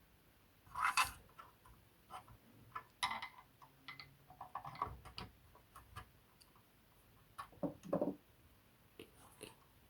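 Faint, irregular clicks and scrapes of hands working a wiring connector loose inside a drum machine, with louder handling noises about a second in and near the end.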